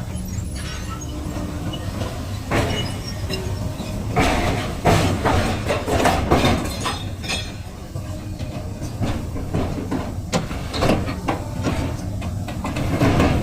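Y81K-1000 hydraulic metal baler at work: a steady low hum of its hydraulic power unit under a run of irregular metallic creaks, crunches and clanks as scrap metal is pressed. The clanking grows busy a few seconds in and is loudest through the middle and near the end.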